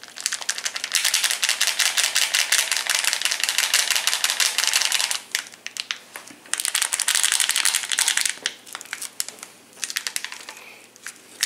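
Small plastic packet of granules being shaken and worked over a ceramic mug: a fast, crinkly rattle in a long spell of about five seconds, then a shorter one, and a few brief spells near the end.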